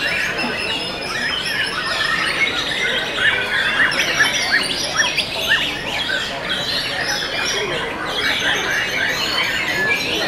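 Many caged white-rumped shamas (murai batu) singing at once: a dense, continuous tangle of fast chirps, whistles and squawks overlapping without a break.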